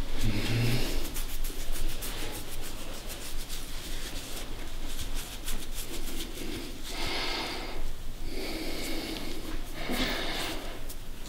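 Hands rubbing and working over skin and clothing during manual chiropractic therapy, with a fine scratchy texture. A short low grunt comes at the start, and three breaths, each under a second, come in the second half.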